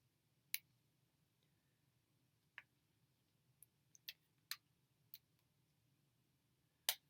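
Near silence broken by about eight faint, scattered clicks and taps from hair being handled and styled, the loudest about half a second in and just before the end.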